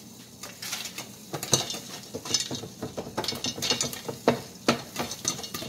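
Kettle corn kernels popping and rattling inside a lidded stainless-steel pot as the pot is shaken on a glass-top electric stove, with the pot scraping on the cooktop; sharp irregular pops and knocks, several a second.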